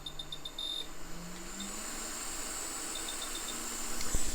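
Hot air rework station beeping in quick short runs as its settings are stepped, about six beeps in the first second and four more about three seconds in, over the steady hiss of its blower.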